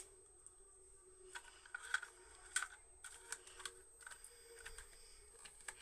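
Faint scattered clicks and taps from a handheld pencil sharpener with a shavings container being handled.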